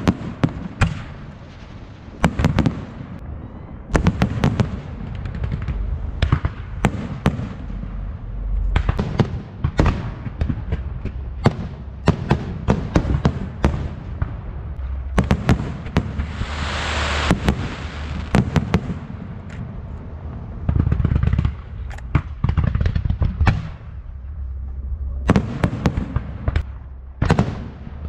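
Fireworks display: a dense run of sharp bangs and crackles, with a few seconds of hissing spray about halfway through.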